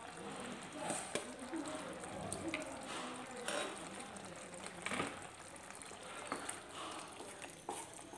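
Cooked dal being spooned into simmering greens in an aluminium pressure-cooker pan and stirred with a wooden spatula: a low steady sizzle with scattered clicks and scrapes of spoon and spatula against the pan.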